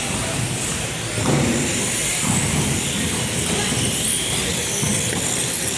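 Mini radio-controlled off-road race cars running on the track: a steady high-pitched motor whine that wavers in pitch as the cars speed up and slow down, over a constant hiss.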